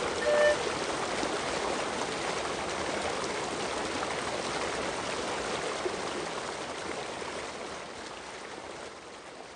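Running water of a stream flowing steadily, slowly fading out near the end. A couple of last flute notes sound briefly at the very start.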